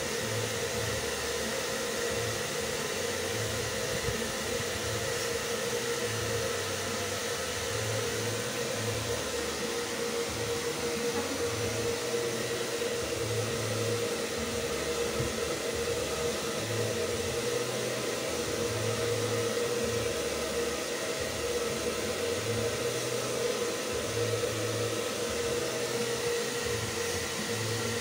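Handheld electric hair dryer running steadily, a constant rush of air with a steady whine, blowing through a Japanese Spitz's thick white coat, with uneven low buffeting of the air coming and going.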